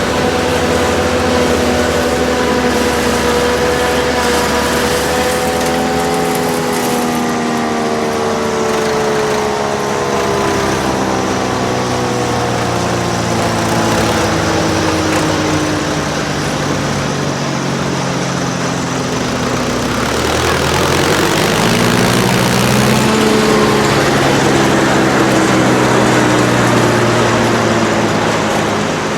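Tractor diesel engines running in a maize silage harvest, one engine's pitch sinking slowly for about fifteen seconds, then rising again a little after twenty seconds in and holding steady, over a constant hiss of machinery.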